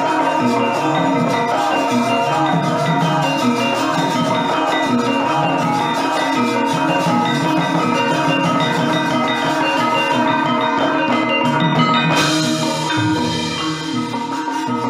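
Javanese gamelan music accompanying a wayang shadow-puppet play: ringing bronze metallophones over a steady drum beat. About twelve seconds in, a sudden bright metallic clash rings out and fades over a couple of seconds.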